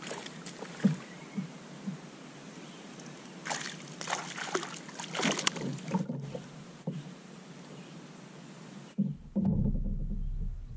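Gear being handled in a kayak: scattered short knocks and clicks over a light background of water, thickest in the middle. About nine seconds in, the sound turns to a louder, muffled low rumble.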